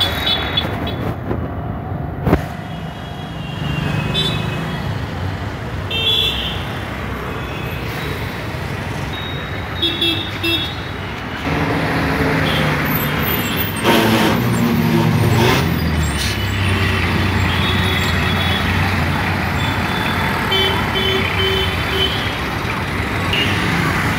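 Street traffic noise: auto-rickshaw and motor-scooter engines running past, with a few short horn toots.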